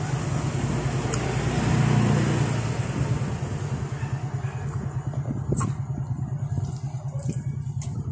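A motor vehicle engine running steadily, loudest about two seconds in and dying away after about three seconds. Scattered short clicks follow in the second half.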